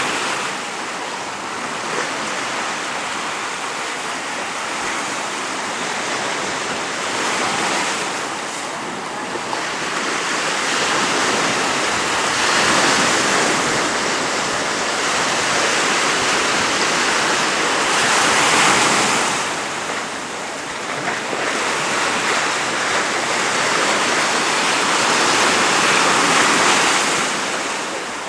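Sea surf breaking and washing up the shore, swelling louder and easing off every few seconds.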